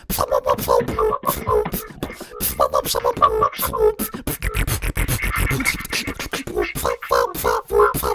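Beatboxing: rapid mouth-made drum hits with a hummed melody woven through them.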